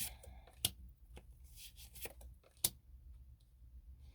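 Tarot cards being handled and laid down on a table: soft rustling with a few sharp taps, two of them louder.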